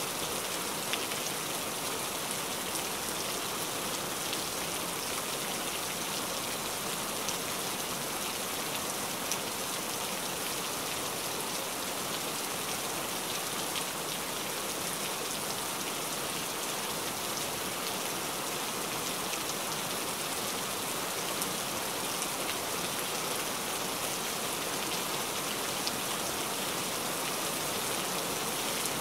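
Heavy rain falling steadily: a dense, even hiss with the small ticks of single drops splashing.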